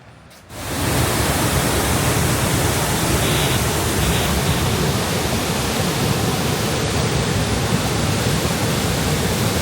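Waterfall rushing, a loud, even, steady noise of falling water that comes in about half a second in.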